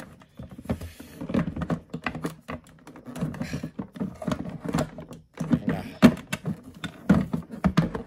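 Clear plastic dust bin of a Dirt Devil Vision Wide Glide bagless upright vacuum being worked back into its housing: a run of irregular plastic clicks, knocks and rattles, the loudest knock about six seconds in. The bin is an awkward, tight fit that is a pain to put back in.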